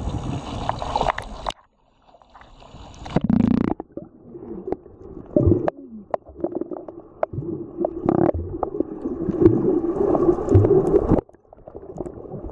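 Sea water heard through a camera dipping at and under the surface: splashing at first, then dull, muffled underwater gurgling and bubbling with scattered clicks over a steady low hum, which breaks off suddenly near the end.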